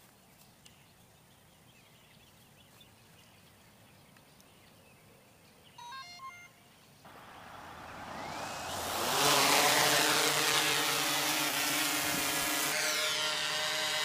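Near silence, then a few short electronic beeps, then the DJI Inspire 2's motors and propellers spin up with a rising whine into a loud, steady, buzzing hum as the drone takes off and climbs.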